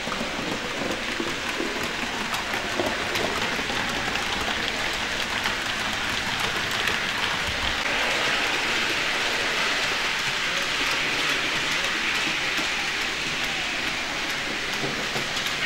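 Model trains rolling on the layout's track: a steady rattling hiss of small wheels with many tiny clicks, swelling a little in the middle.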